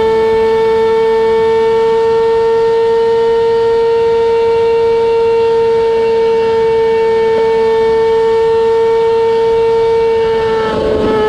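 2004 Kawasaki ZX-6R's inline-four through a MIVV GP exhaust, held at steady high revs with a high, even drone; the pitch dips briefly near the end and settles back.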